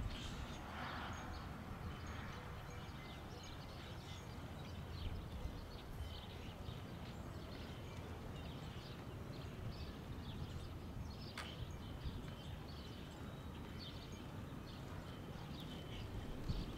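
Outdoor ambience: a low steady rumble with scattered short bird chirps, and one sharp click about two-thirds of the way through.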